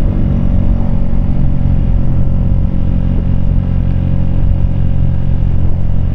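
Keeway K-Light 125's small air-cooled V-twin engine running at a steady speed under way, heard from the rider's seat, with an even pitch that neither rises nor falls.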